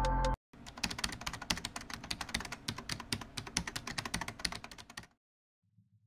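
Electronic intro music cuts off just after the start, followed by rapid, uneven clicking of typing on a computer keyboard that stops about five seconds in.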